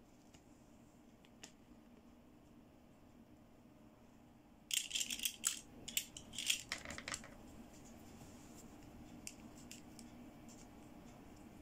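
Small hard-plastic toy accessories being handled: a dense run of clicks and rattles for a couple of seconds around the middle, then a few light ticks, over a faint steady hum.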